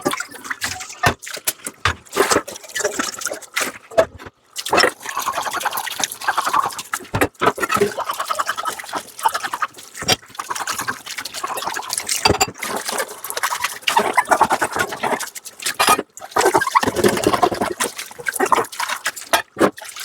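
Dishes being hand-washed at a sink: frequent clinks and knocks of crockery, water running and splashing, and short squeaks of scrubbing.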